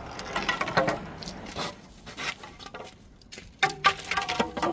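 Hollow green bamboo poles knocking and scraping as they are handled and cut with a hand pruning saw. The knocks ring briefly and come in irregular clusters, about a second in and again near the end.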